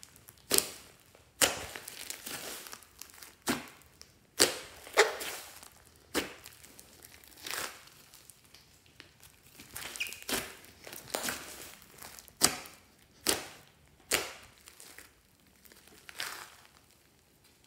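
Hands squeezing, pressing and pulling a large lump of thick green slime, making irregular sticky crackles and pops about once a second, each fading quickly. The sounds trail off near the end.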